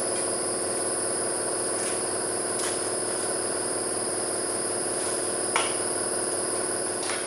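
Steady machine hum made of several fixed tones with a thin high whine, broken by a few faint clicks.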